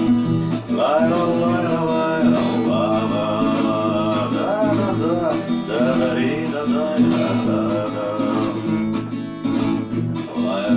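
Music: an instrumental break in a song, with guitar accompaniment under a wavering melodic lead line and no sung words.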